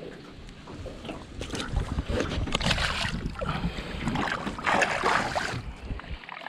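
Water splashing and swishing as a peacock bass is lowered into the river and released beside the boat, in two rough bursts.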